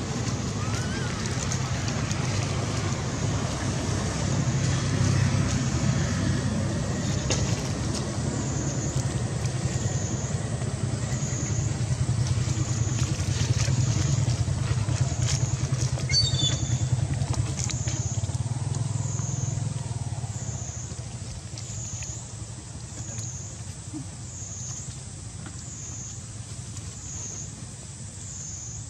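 Outdoor background noise: a steady low rumble that eases off about two-thirds of the way through, under a high, evenly pulsing drone.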